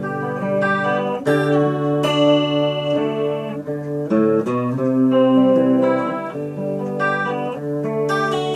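Greco guitar being played: chords and notes struck and left to ring, changing every second or two.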